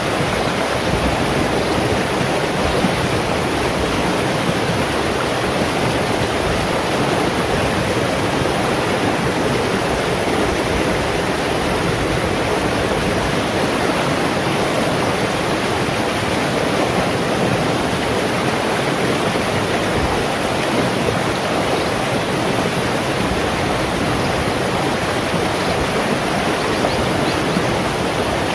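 A shallow, rocky stream flowing fast over and between stones, a steady, unbroken rush of water.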